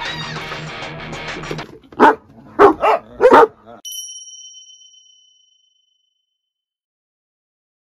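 A dog barking sharply four times in quick succession, angrily scolding another dog, over quiet background music. A chime sound effect then rings out and fades, followed by silence.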